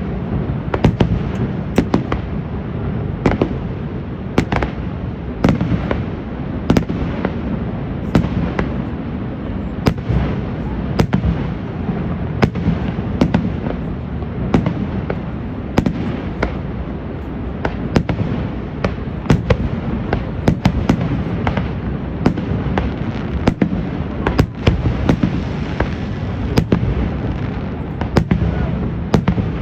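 Fireworks display: a long run of sharp bangs, often one or two a second at irregular spacing, over a steady low rumble.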